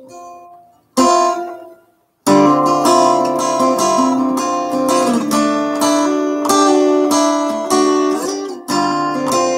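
Steel-string acoustic guitar with a Fishman Blackstack soundhole pickup, strummed. One chord rings out about a second in, then after a short gap steady chord strumming starts at around two seconds.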